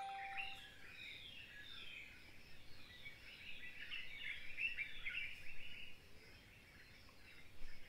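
Wild birds chirping and calling, many short overlapping chirps, faint. The calls thin out about six seconds in and pick up again near the end.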